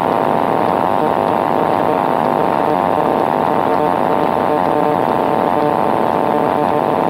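Kitfox light aircraft's engine and propeller running steadily at high power in the climb-out, heard inside the cockpit, with a constant high hum over the engine noise.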